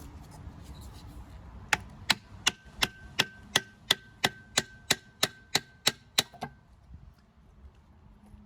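A quick run of about fifteen sharp metallic knocks, roughly three a second, with a ringing tone sounding under them after the first few. The run stops abruptly.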